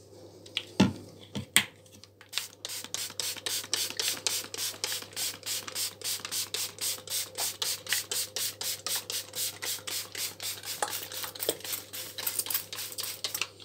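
Blue plastic trigger spray bottle misting water onto the sown seed tray's soil, squeezed in quick succession about four times a second, each squeeze a short hiss. A couple of sharp knocks come before the spraying starts.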